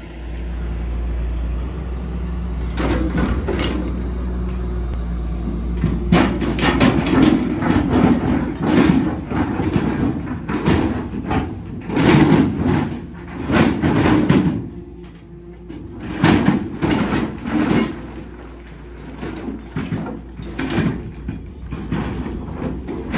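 Hyundai excavator running with a steady low engine hum, while its bucket scrapes and grinds through rock and gravel again and again in a water-filled pit. The scraping comes in rough bursts of about a second each, from a few seconds in, with a short lull about two thirds of the way through.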